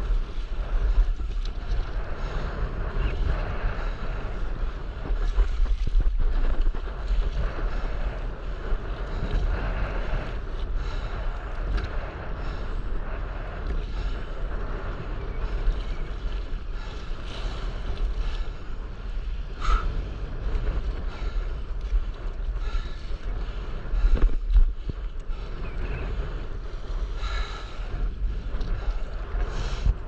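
Wind buffeting the microphone over choppy sea water sloshing against a stand-up paddleboard, a steady rushing noise with a heavy low rumble.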